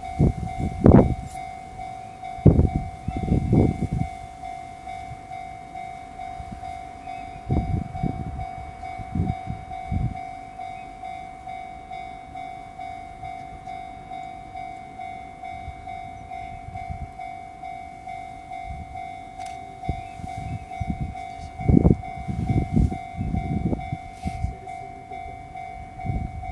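Empty railway tank wagons rolling through a level crossing, their wheels clattering over the rail joints in groups of low thumps. A Japanese level-crossing alarm rings steadily and rhythmically the whole time.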